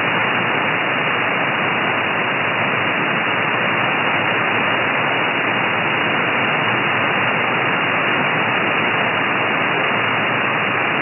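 Steady shortwave receiver hiss from an SDRplay RSPduo with a Mini Whip active antenna, tuned to upper sideband on the 17-metre amateur band. It is the band's noise floor, with no station coming through, and it is cut off sharply above about 3 kHz by the sideband filter.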